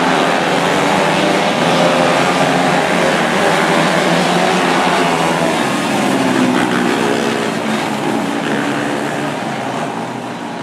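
A pack of 125cc micro sprint cars racing on a dirt oval, many small engines running hard at once. Their pitches rise and fall as the cars accelerate and pass, and the sound begins to fade near the end.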